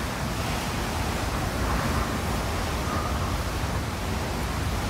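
Hurricane Irma's wind and driving rain, a steady rushing noise with a deep rumble of wind buffeting the microphone.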